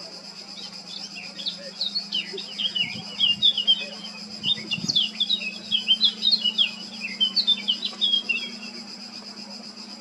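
Male Eurasian blackcap singing a long, rapid warbling phrase of quick, varied high notes that starts about half a second in and stops near the end, over a steady high drone.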